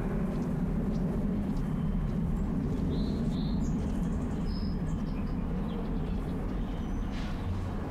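Steady low ambient rumble, with a few faint short bird chirps about three and five seconds in.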